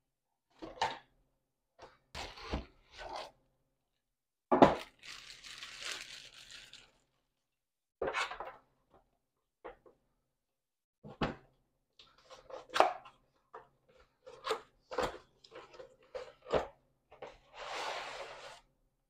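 Packaging of new lights being opened and handled: scattered knocks and clicks, with two stretches of rustling and tearing lasting a couple of seconds each, about five seconds in and again near the end.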